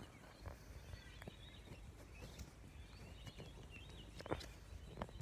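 A few faint, scattered clicks and taps from a tactical pen being handled, over a low background.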